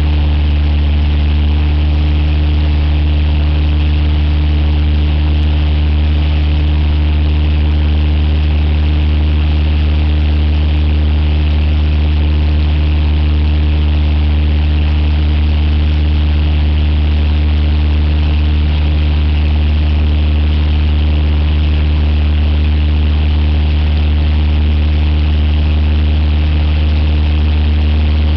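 Cessna 172's piston engine and propeller running steadily in cruise flight: a loud, even drone with a strong low hum and airflow hiss, unchanged throughout.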